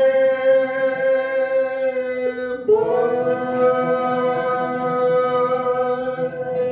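A man and a woman singing a Turkish song together, holding a long closing note, breaking briefly about two and a half seconds in, then holding a second long note that ends near the end.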